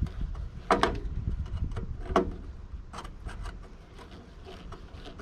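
Parts of an old truck heater being handled while it is taken apart: a few sharp clinks and knocks, the loudest about a second in and again about two seconds in, over a low rumble of handling.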